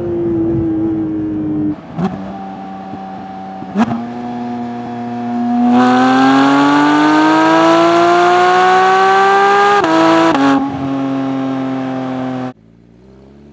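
Porsche 992 GT3's 4.0-litre naturally aspirated flat-six exhaust in a string of edited driving clips. The engine note falls, then holds steady, then climbs loudly under hard acceleration from about six seconds in. It drops back around ten seconds, and near the end cuts sharply to a quieter, rising note.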